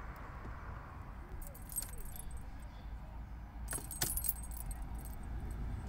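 Car keys jangling in two short bursts at the ignition, over a faint low rumble inside the car.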